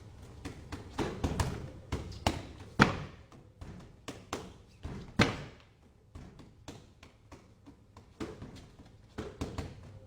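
Wing Chun punches and hand strikes landing in quick, irregular flurries of sharp slaps and thuds, with two harder hits about three and five seconds in.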